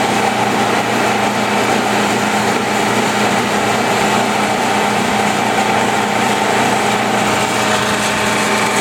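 Rong Fu RF-19V 20-inch variable-speed drill press running steadily at high speed, a little over 2,000 RPM, driven by its inverter. The motor and belt-driven spindle give a constant whine with an even hum under it.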